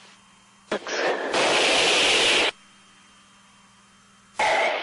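Static hiss on the shuttle cockpit's intercom audio. A click is followed by a loud burst of hiss lasting under two seconds that cuts off sharply, then a shorter burst near the end, over a faint steady hum.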